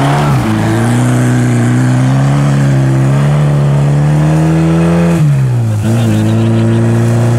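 Moskvich 412's engine revving hard. Its pitch creeps upward, drops sharply about five seconds in, then picks up again and holds steady.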